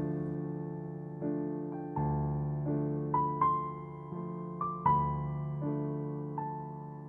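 Soft background piano music: slow, sustained chords and single notes struck about once a second and left to fade.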